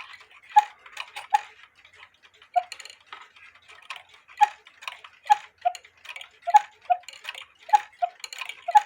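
Austrian quarter-hour cuckoo clock ticking steadily, with the tick and tock of its escapement alternating at slightly different pitches.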